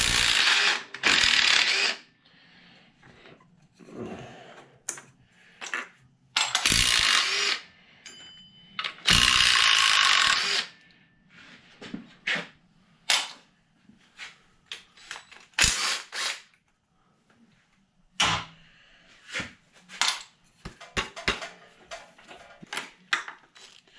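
Cordless drill with a socket extension spinning out the power steering pump's mounting bolts, in three runs of a second or two each. After them come a series of short metal clinks and knocks as the loosened bolts and the pump are handled.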